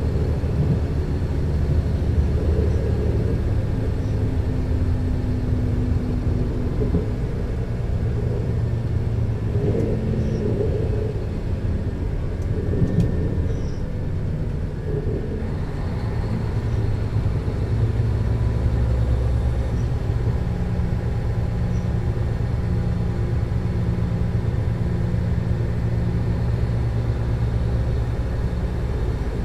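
Alstom LINT 41 H diesel multiple unit standing with its diesel engines idling: a steady low rumble and hum, whose pitch pattern shifts about halfway through.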